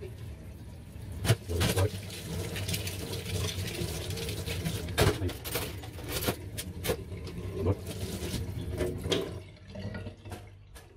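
Kitchen tap running into a stainless steel sink as a knife and tomatoes are rinsed, with a few sharp knocks and clinks against the steel; the water noise falls away near the end.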